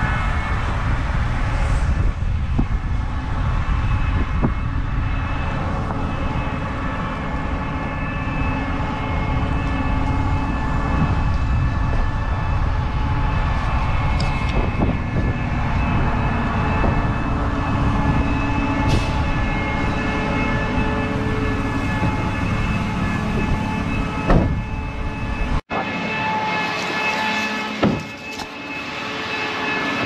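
Gleaner S77 combine harvester running steadily, a constant machine whine over engine noise, with low wind rumble on the microphone. Near the end the sound cuts sharply and the wind rumble largely drops away.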